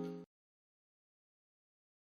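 Background music holding a chord that cuts off abruptly about a quarter second in, then digital silence.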